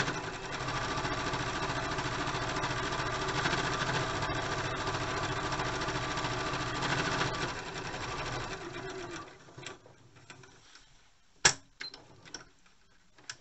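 Electric domestic sewing machine stitching steadily, then stopping about nine seconds in. After it stops there is one sharp click and a few faint clicks, and the machine starts again at the very end.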